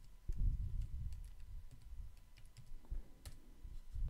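Computer keyboard keys typed in a run of light taps, then a single sharper click about three seconds in, a mouse button pressed.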